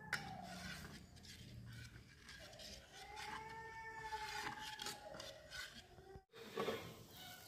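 Steel ladle stirring in a steel bowl, with light clinks and scraping of metal on metal, one sharper clink just after the start. A faint pitched tone rises and falls in the middle.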